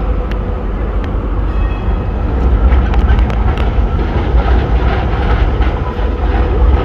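Melbourne tram running along its street rails, a continuous low rumble with a steady hum and a few sharp clicks, growing a little louder about halfway through.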